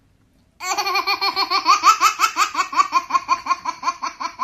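A person laughing hard: a quick, even run of high-pitched 'ha' sounds that starts about half a second in.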